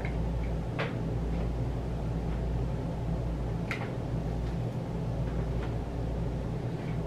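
A steady low hum, with a few faint light clicks, the two clearest about three seconds apart.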